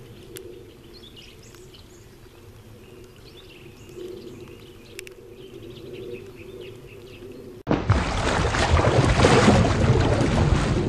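Birds chirping faintly over quiet lakeside ambience. About eight seconds in, a loud splash-and-bubbles sound effect cuts in suddenly and keeps rushing to the end.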